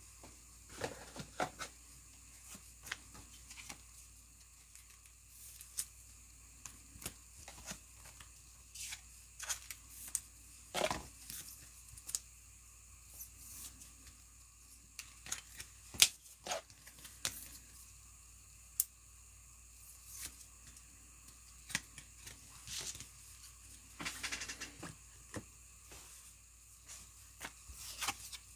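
Trading-card packs being torn open and cards handled: irregular soft rips, wrapper crinkles and small clicks, the sharpest about 11 and 16 seconds in.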